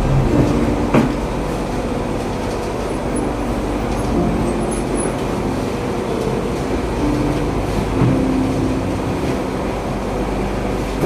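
A machine running steadily, with a low hum that comes and goes over its noise.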